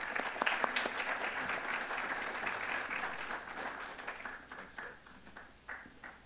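Audience applauding, a dense patter of many hands clapping that thins to a few scattered claps and dies away near the end.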